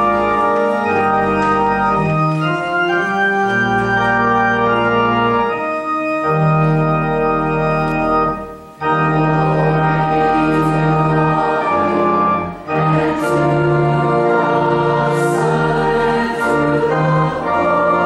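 Organ playing slow, sustained chords, with a brief break about nine seconds in and a slight dip near twelve and a half seconds.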